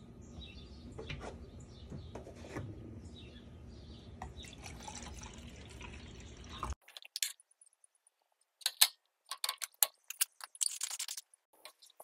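Water pouring from a plastic gallon jug into a Puffco Cupsy, a coffee-cup-shaped bong, splashing steadily as it fills. It stops abruptly and is followed by a run of sharp clicks and light scrapes from small parts being handled, the loudest about nine seconds in.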